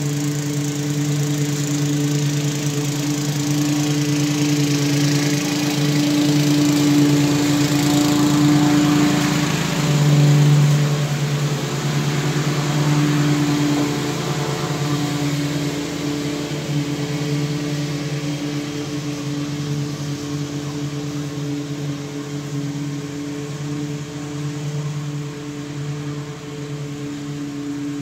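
Walk-behind lawn mower's 8.5 hp 270cc Honda single-cylinder engine running steadily under mowing load. It swells somewhat louder in the middle, then eases a little as the mower moves about the yard.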